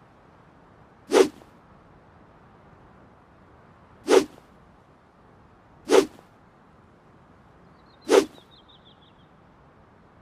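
A longsword swung through the air four times, each a short, sharp swish, spaced unevenly about one to three seconds apart.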